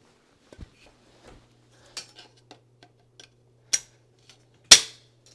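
Powder-coated steel box-spring frame parts clicking and knocking together as they are snapped into place: a few scattered sharp metallic clicks, the loudest near the end.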